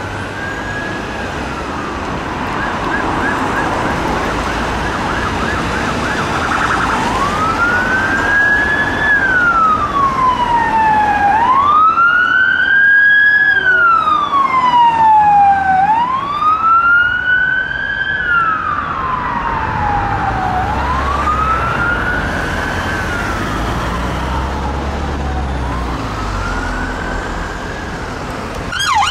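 Police car siren on a slow wail, rising and falling about every four seconds, with a fast yelp warble briefly near the start. It grows louder to a peak around the middle and then fades, over the low rumble of road traffic.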